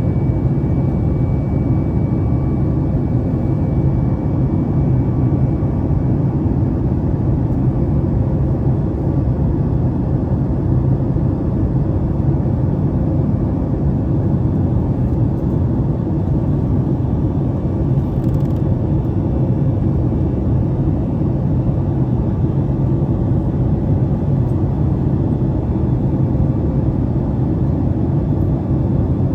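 Steady drone of cabin noise inside a Boeing 737-8 MAX: its CFM LEAP-1B jet engines and the rush of air, heavy in low rumble.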